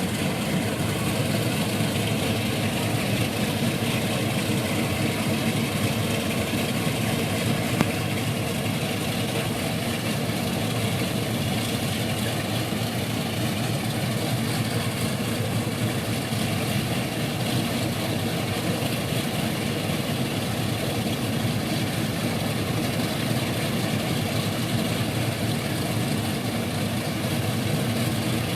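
Boeing B-29 Superfortress's big radial piston engines running steadily at low power, an even, unbroken drone.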